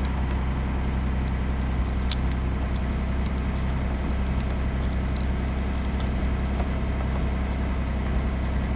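Pickup truck's engine idling steadily with the defroster fan blowing: a constant low hum.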